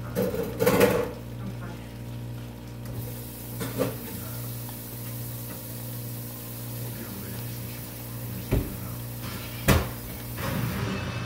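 Faint sizzling from glutinous rice frying in oil in a wok, with a few short sharp knocks, the loudest near the start, over a steady low hum.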